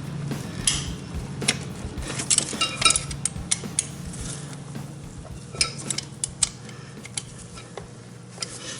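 Scattered light metallic clicks and clinks as a scooter carburetor and its small parts are handled and fitted into place.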